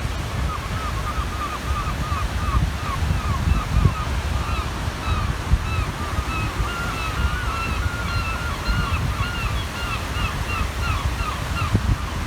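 Waves washing on the shore with wind rumbling on the microphone, under a long run of short repeated calls from a water bird, about two or three a second.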